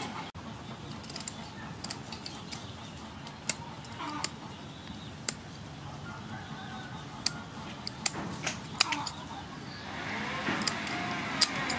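Kitchen scissors snipping through a whole sea fish, a sharp cut about once a second at an irregular pace.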